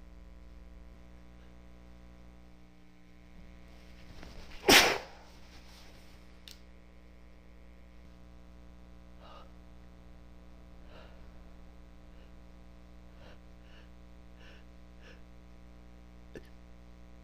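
A woman sneezes once, loudly, about five seconds in, after a rising intake of breath, from an irritated nose. A few faint short sounds follow over a steady low electrical hum.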